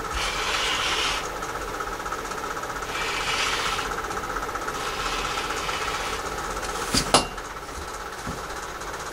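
An electric fan runs with a steady rhythmic rattle that sounds like a 1920 film projector. Three hissing strokes of a rotary cutter slicing through quilting fabric, then a sharp clack of the acrylic ruler about seven seconds in.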